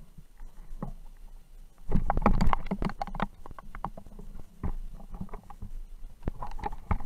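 Scuffing footsteps on loose rocky ground, with knocking and rattling of the rifle that carries the camera. The sound is loudest and densest for about a second and a half starting about two seconds in, then thins to scattered knocks.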